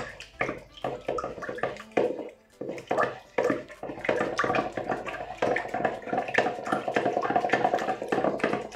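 Wooden spatula stirring water and fresh yeast in a stainless steel bowl, dissolving the yeast: quick repeated knocks and scrapes against the metal with a light slosh of liquid. The strokes come faster and more evenly from about halfway through.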